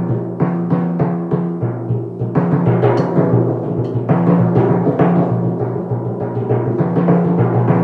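Timpani played with mallets: a steady run of strokes moving between drums tuned to different notes, each note ringing on under the next. The strokes grow a little denser in the second half.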